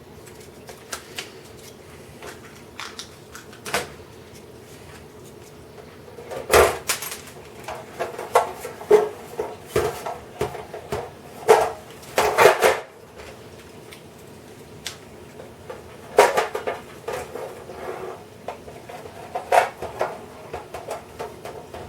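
Irregular clicks, taps and knocks of small hard clock parts (the clockwork movement and hands) being handled and set down on a work surface, with a few louder clatters in clusters.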